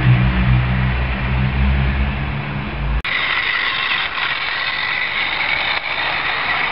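Model railway trains running on garden track: a steady low electric-motor hum and wheel rumble, which cuts off abruptly about three seconds in. A thinner, higher steady whine follows as a model steam locomotive with coaches approaches.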